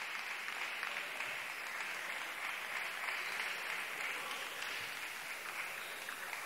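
Arena crowd applauding steadily, with a few faint knocks from the table tennis rally. The applause cuts off suddenly near the end.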